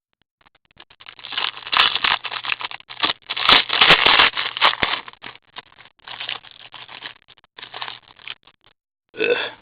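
Hockey card pack wrappers being torn open and crinkled by hand, an uneven run of scraping, crackling noise lasting several seconds.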